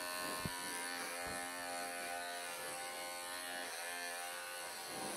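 Electric pet clippers running with a steady buzz while they are drawn over a cat's short-clipped coat, tidying up the fur on its back.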